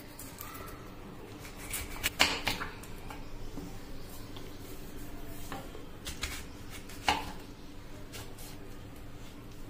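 Kitchen dishes and utensils being handled: scattered sharp knocks and clinks, the loudest about two seconds in and again about seven seconds in.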